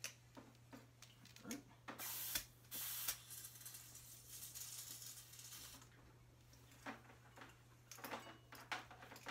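Compressed air hissing from an air-hose inflator chuck on a bicycle tire's Schrader valve: two short loud bursts about two and three seconds in, then a softer hiss that stops about six seconds in. Light clicks of the chuck and gauge follow near the end.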